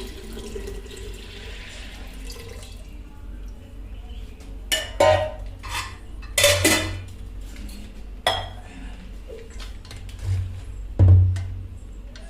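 Water pouring into a pressure cooker of soaked dal for the first couple of seconds, then about five sharp metal clanks of pots and utensils being handled.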